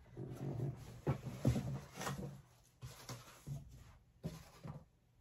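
Handling noise from a large cardboard shipping box: cardboard and packing rustling and scraping, with irregular knocks as heavy parts are shifted about inside it. It is busiest in the first couple of seconds, then thins to a few separate knocks.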